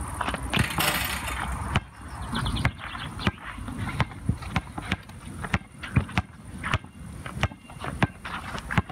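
Basketball bouncing on a hard outdoor court as a player dribbles, a sharp knock about twice a second, with sneakers scuffing and stepping on the court surface.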